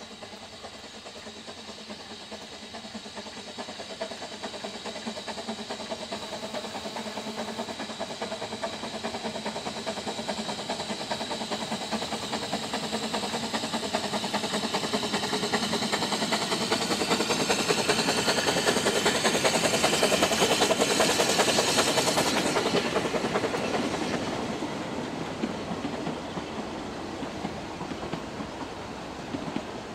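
Narrow-gauge steam locomotive approaching with its train, its exhaust beating rapidly and growing steadily louder to a peak about two-thirds of the way in, then dropping away as the coaches roll past with wheel clatter.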